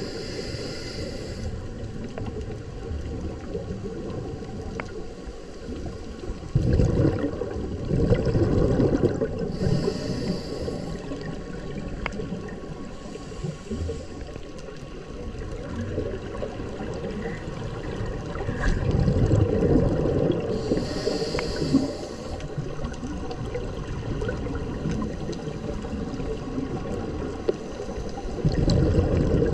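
Muffled underwater water noise picked up by a camera held beneath the surface: a low steady rush that swells three times, with a short hissing breath about every ten seconds from the swimmer doing the filming.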